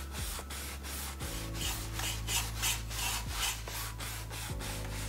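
Paintbrush scrubbing acrylic paint onto a canvas in quick short strokes, about three a second.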